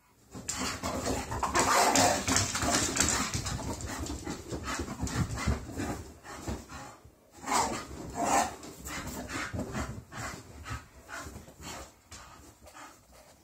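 Two English bull terriers playing rough on and around a sofa: a busy run of scuffling, knocks and dog noises. It is loudest in the first few seconds, with two sharp outbursts past the middle, and dies down near the end.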